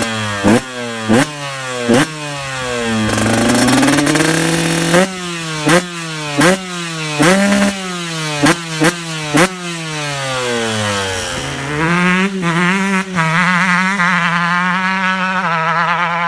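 2009 KTM 125 EXC's single-cylinder two-stroke engine being revved in quick sharp blips, each falling straight back, about ten times, with one longer rev around three to five seconds in. Near the end it settles to a wavering, uneven idle.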